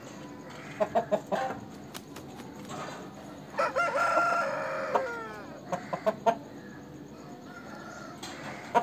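An Aseel gamefowl rooster crows once, about three and a half seconds in, for about a second and a half, the call dropping in pitch at its end. Short clucks come before and after it.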